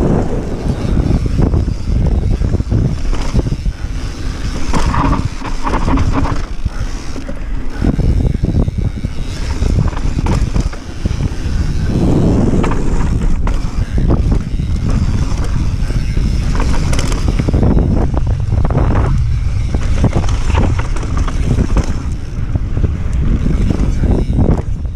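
Mountain bike descending a dirt trail at speed: a steady rush of wind on the microphone and tyres rolling over dirt, with frequent knocks and rattles from the bike over bumps.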